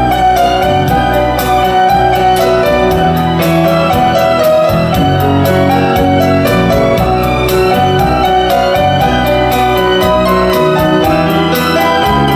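Piano-led music with a quick, steady beat.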